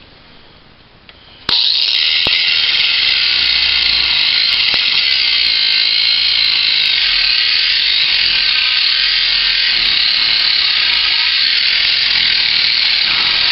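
Ryobi One+ P420 18-volt cordless 4-1/2-inch angle grinder starting abruptly about a second and a half in, then running steadily with its cut-off disc grinding through steel.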